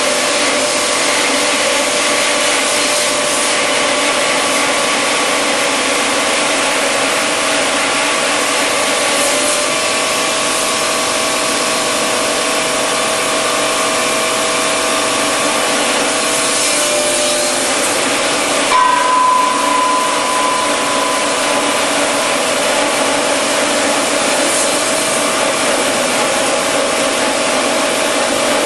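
PRINZ PC120 automatic package cross-cut saw running and sawing through a stacked package of lumber boards: a loud, steady mechanical noise with a couple of steady tones. About 19 seconds in, a higher tone rises over it for a couple of seconds.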